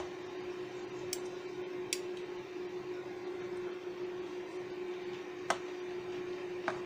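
A metal spoon stirring thick cold kefir soup in a stainless steel pot, with four light clinks of the spoon against the pot, over a steady hum.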